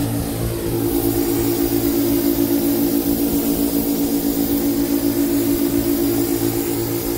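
Pressure-washing rig's engine running steadily, a pitched drone with a regular pulsing throb.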